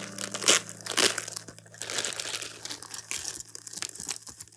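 Clear plastic sleeve crinkling as paintbrushes are unwrapped by hand: two louder crackles within the first second or so, then quieter, scattered rustling.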